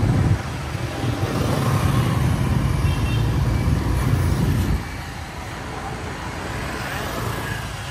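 Motorbike street traffic: a steady low rumble of engines and tyres on the road, which drops in level about five seconds in.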